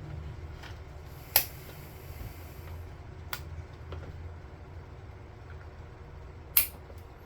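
A few sharp, separate clicks, the loudest about a second and a half in and another near the end, over a steady low hum: small hard objects being handled.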